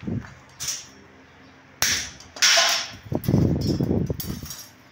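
Steel strips and bar stock knocking and clattering against each other and the concrete floor as they are handled. Two sharp metallic hits about half a second apart near the middle, then a second and a half of rattling.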